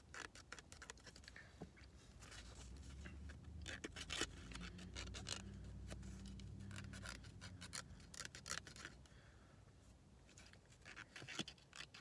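Faint, quick scratching strokes of a scratch-off lottery ticket being scratched, coming in short runs. A low rumble sits underneath from about two to eight seconds in.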